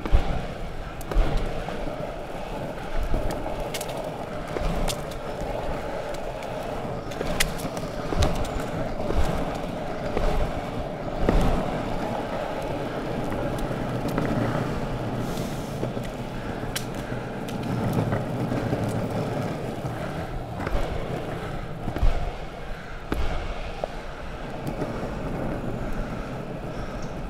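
Longboard wheels rolling on an asphalt path: a steady rumble with scattered clicks and knocks.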